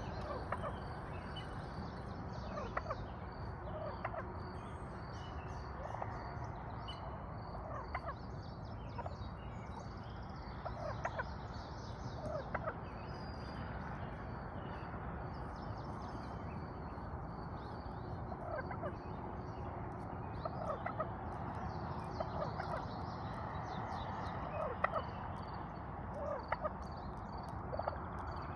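Birds calling: short, scattered calls every second or so over a steady background hiss.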